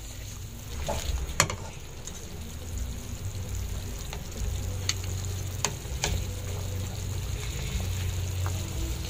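Pot of tinola, chicken and chayote soup, bubbling at the boil while a ladle stirs it, with a few sharp clinks of the ladle against the metal pot.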